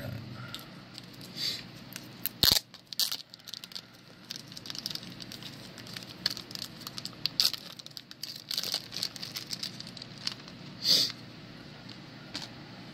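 Packaging being handled and torn open: irregular crinkling, rustling and tearing with scattered sharp clicks and snaps, the loudest about two and a half seconds in and near the end.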